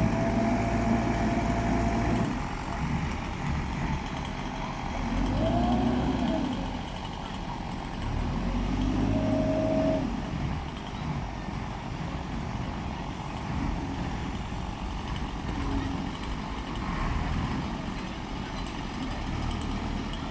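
Heavy diesel machinery running, its engine revving up and back down three times in the first half, then running more steadily.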